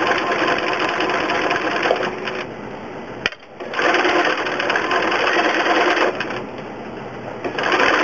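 Domestic sewing machine stitching fast in straight stitch with a darning foot, the feed dogs still up. It drops off twice for about a second, with a single sharp click during the first lull.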